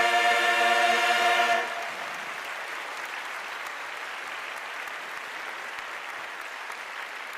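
A group of singers holds a final sung note, 'yeah', together, cut off about one and a half seconds in; then a large audience applauds steadily.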